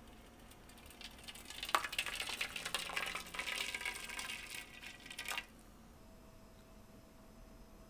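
Hot water poured from a spout into a shallow tray, a steady splashing pour that starts about a second in and stops at about five and a half seconds.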